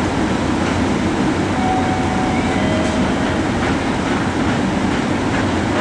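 Train moving on the station tracks: a steady, loud rumble of wheels on rails, with a few faint, brief squeaky tones.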